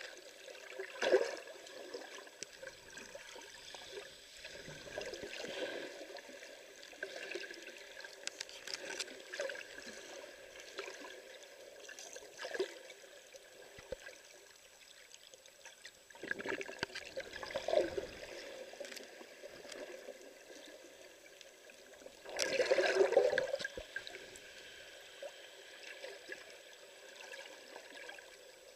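Muffled underwater water noise picked up by a submerged camera, with several louder swishing gurgles of moving water, the loudest about three-quarters of the way through.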